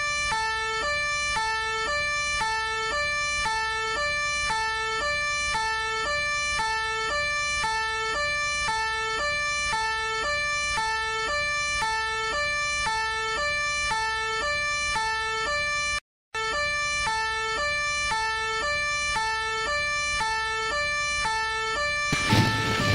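Two-tone siren alternating steadily between a lower and a higher note, each note lasting about a third of a second, with a brief dropout about sixteen seconds in. Near the end a motorcycle engine starts running, louder than the siren.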